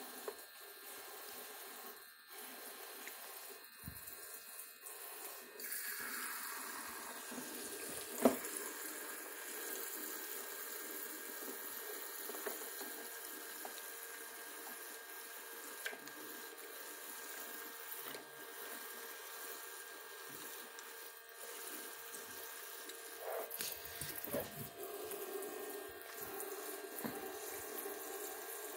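Water running from a toy sink's faucet into its basin, with small splashes and knocks as a monkey washes things in it; one sharp knock about eight seconds in.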